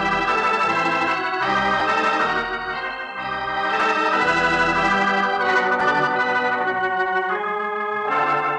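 Organ music bridge: a run of held chords that change every second or two. It marks a scene change in the radio drama.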